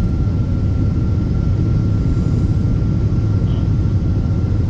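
Cabin noise inside a Boeing 777-200ER climbing after takeoff: a loud, steady low drone of the engines and airflow, with a faint steady high tone running through it.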